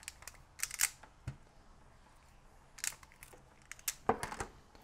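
Irregular sharp snips and clicks: small side cutters trimming the thin unused wires from a stripped USB cable, with tools and cable being handled on a desk.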